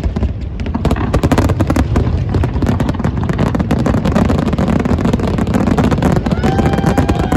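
Aerial fireworks bursting: rapid crackling and popping shells over crowd voices. About six and a half seconds in, a steady whistle-like tone starts and holds.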